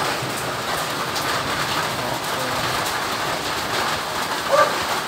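Steady rain falling, an even hiss with faint scattered drip ticks. A short high chirp sounds near the end.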